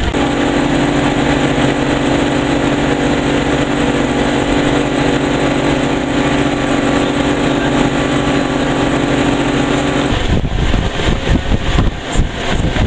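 A boat's engine running steadily at cruising speed, a loud even hum. About ten seconds in it cuts off and is replaced by wind gusting against the microphone.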